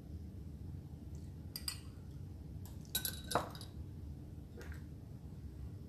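A few light clinks of metal kitchen utensils against small glass bowls, the sharpest pair about three seconds in, over a faint low hum.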